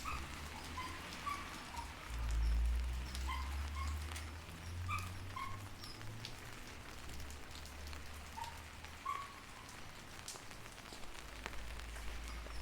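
Rain falling on surfaces, with scattered drops landing close by. Short animal calls come now and then, and there is a low rumble about two seconds in.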